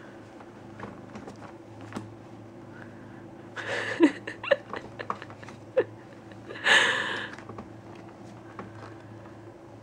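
Plastic bags rustling and crinkling under a cat as it noses and paws at them: two bursts, about four and about seven seconds in, with a few short squeaks between.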